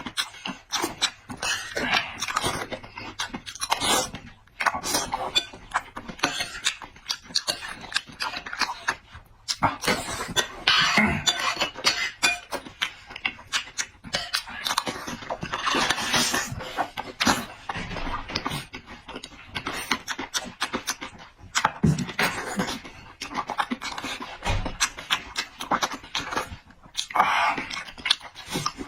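A person eating close to the microphone: wet chewing, lip-smacking and slurping in an irregular run of clicks and bursts.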